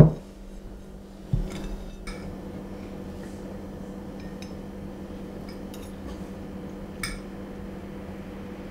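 A dinner plate set down on a cloth-covered table with a thump, a knock a little over a second later, then a few light clinks of forks against plates as two people eat, over a steady low hum.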